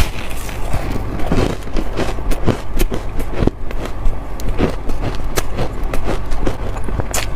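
Chunks of refrozen shaved ice being bitten and chewed close to the microphone: a dense run of crisp, crackling crunches, several a second.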